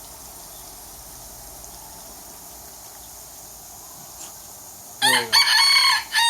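Rooster crowing once, a loud cock-a-doodle-doo in several segments starting about five seconds in, after a stretch of low steady background hiss.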